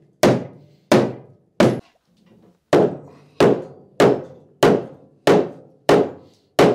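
Hand hammer striking the steel mounting bolt of a Citroën Méhari rear axle to drive it out of the chassis. About ten sharp blows, each with a brief ring: three, a short pause, then seven at a steady pace of about one and a half a second.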